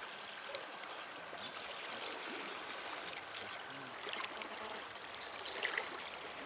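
Creek water flowing in a steady hiss, with a brief splash about five and a half seconds in as a hooked rainbow trout thrashes at the surface.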